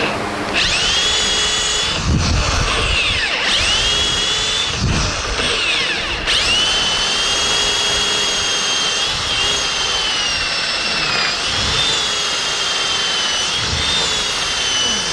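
Power drill boring 35 mm hinge holes into a wooden cabinet door. The motor whine spins up and rises in pitch, sags under load, and restarts several times as the trigger is worked.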